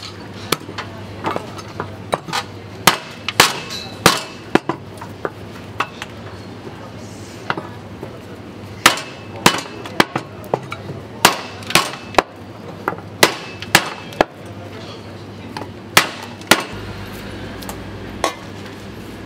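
Butcher's meat cleaver chopping on a chopping block: sharp, irregular chops, sometimes two in quick succession, ending a little before the close.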